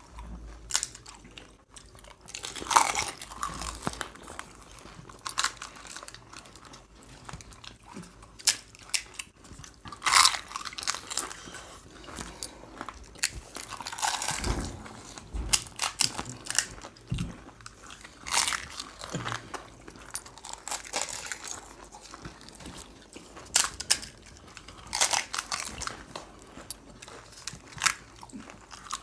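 Pani puri (puchka) being bitten and chewed, the crisp hollow puris crunching and crackling in irregular bites with wet chewing between them.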